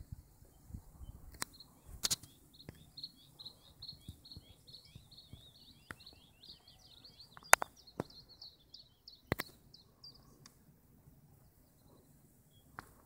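A songbird singing one long, continuous twittering song, high in pitch, from about a second and a half in until about ten seconds in, over a faint low rumble. Several sharp clicks break in, the loudest about seven and a half seconds in.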